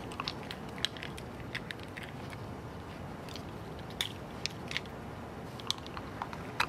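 Young raccoons chewing and rummaging through spilled garbage: irregular small crunches and crackles of food scraps and wrappers, a few a second, over a low steady hiss.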